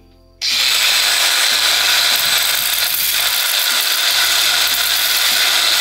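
Angle grinder cutting through a steel seat bolt: a loud, steady grinding hiss with a faint high whine, starting about half a second in.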